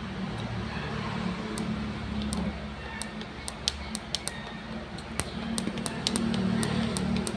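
Background music, with irregular sharp snapping clicks from the bench-wired motorcycle CDI ignition rig sparking during the test. The clicks come in uneven runs, thickest in the second half.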